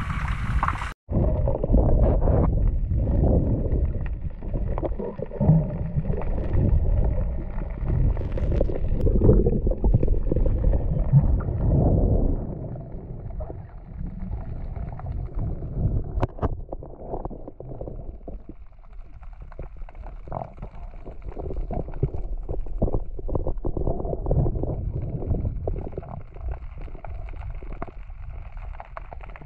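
Muffled underwater sound of a swimmer spearfishing on a reef: water swishing and gurgling with a low rumble and small crackles, heard through a camera's waterproof housing. It begins with a sudden change about a second in, and is louder for the first dozen seconds, then quieter.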